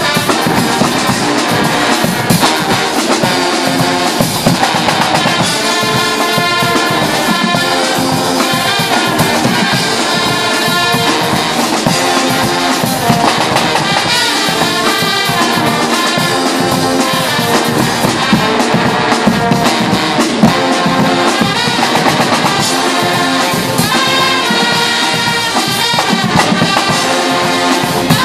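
Guggenmusik carnival brass band playing loudly: trumpets, trombones, saxophones and tubas over a steady beat of bass drums, snare and cymbals.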